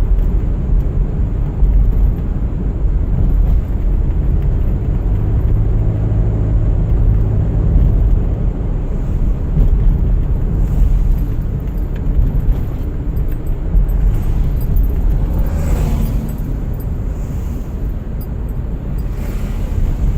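Car driving on a winter road: a steady low rumble of road and engine noise, with a brief rushing whoosh about sixteen seconds in and a fainter one near the end.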